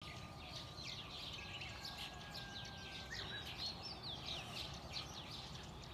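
Many small birds chirping together, a dense run of quick falling notes, over a low steady outdoor background hum.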